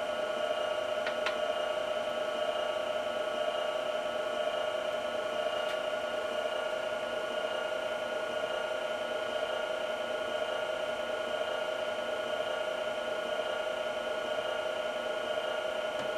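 Sound-decoder recording of a Class 52 Western's diesel engines idling, played through the model locomotive's small speaker: a steady hum with several fixed tones and no change in pitch. Two faint clicks about a second in.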